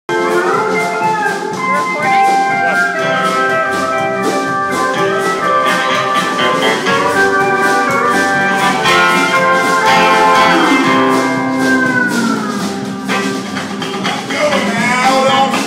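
Live acoustic band playing, with guitars and upright bass: held notes and sliding pitches, with a long downward slide about ten seconds in.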